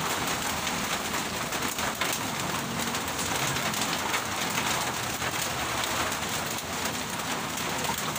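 Heavy rain falling steadily, a dense hiss of drops.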